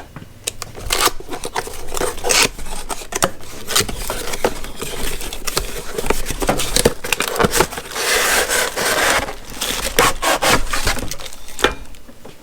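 A cardboard product box being cut open and unpacked: tape slit, cardboard flaps scraping and rustling, with many short knocks and clicks as the contents are handled. A longer stretch of dense scraping and crinkling comes about two-thirds of the way through.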